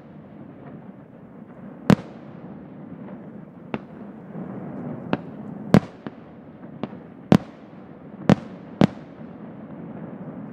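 Fireworks display: about nine sharp aerial shell bursts at irregular intervals over a steady background noise.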